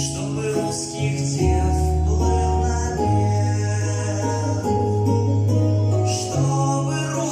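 A solo vocalist singing into a microphone over a backing track, with a bass line that changes note every second or so.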